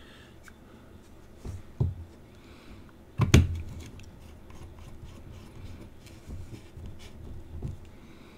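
Small handling noises on a hobby workbench: a few light knocks and clicks as a small bottle and tools are moved and set down, with one louder knock about three seconds in.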